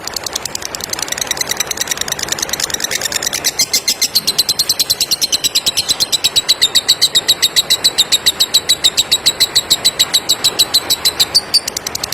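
Lovebird singing a long, rapid chattering trill (ngekek): sharp high chirps repeated about ten a second. The run grows louder and higher about four seconds in and breaks off shortly before the end.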